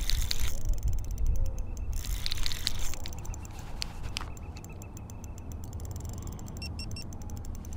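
Fishing reel being cranked against a hooked fish on a bent rod, its gears giving a rapid, steady ticking, over a low rumble.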